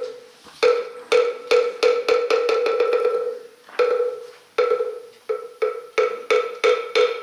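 Moktak (Korean Buddhist wooden fish) struck with its mallet: single knocks at one steady pitch that speed up into a fast roll and die away, then a second run that starts slow and speeds up again. This is the moktak lead-in that sets the time for the assembly's unison chant.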